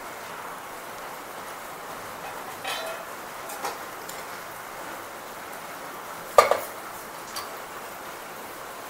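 Steel kitchenware clinking at a gas stove: a metal lid and a metal spatula knocking against a griddle and pans. There are a few short ringing clinks, the loudest a double clink about six and a half seconds in, over a steady low hiss.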